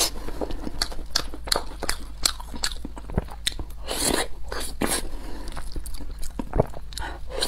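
Close-miked chewing and wet mouth smacks of a person eating curry rice. A larger burst comes about four seconds in as a heaped spoonful goes into the mouth.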